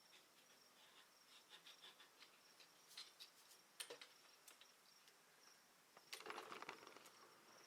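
Faint scattered clicks and ticks of small bicycle parts being handled while the controls and cables are fitted, with a denser rattle and rustle about six seconds in; otherwise near silence.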